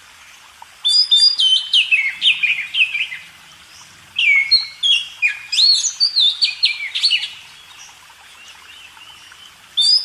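A small songbird singing in three bursts of quick, high whistled notes that sweep downward, with short pauses between the bursts.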